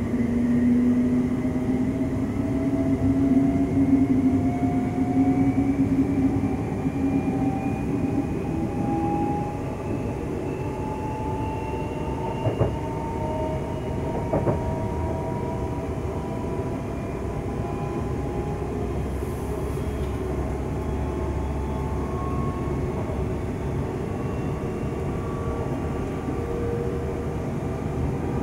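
Siemens Class 350 Desiro electric multiple unit heard from inside the passenger saloon, gathering speed. The electric traction whine rises slowly and steadily in pitch over the rumble of the wheels on the rail, and two sharp knocks come through near the middle.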